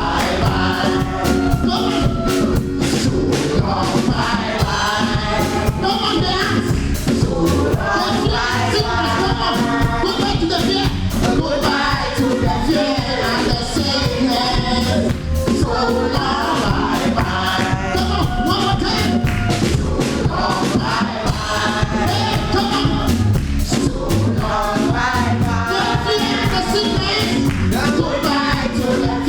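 Live gospel choir singing with a full band accompaniment and a steady drum beat.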